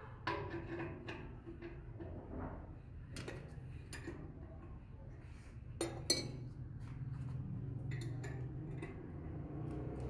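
Metal parts clinking and knocking against a stainless steel washing machine tub while a gear drive unit and its pulley are fitted by hand, the loudest knocks about six seconds in.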